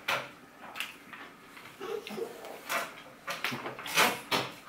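Eating and handling food at a table: a string of short clicks and crackles, thickest near the end.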